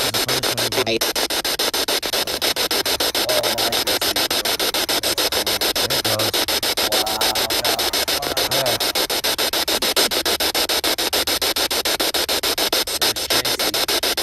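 Spirit box (ghost box) radio sweeping through stations: continuous loud static chopped into rapid short pulses, with brief voice-like fragments coming through, the kind of snippet investigators mark as a possible EVP.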